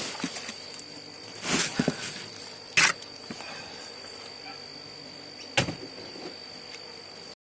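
Scattered rustles and a few sharp knocks as a hydroponic potato pot is handled and its dried-out contents disturbed, over a faint steady high-pitched tone. The sound cuts off just before the end.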